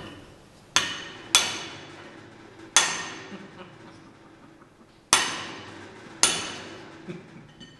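Hammer blows on a chromium-molybdenum (chromoly) steel sheet clamped in a bench vise, bending the tough sheet: five hard strikes at uneven intervals, each with a short metallic ring.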